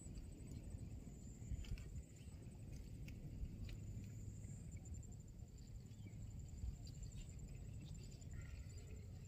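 Faint swamp ambience: a steady, high-pitched pulsing trill of insects over a low rumble, with a few faint knocks.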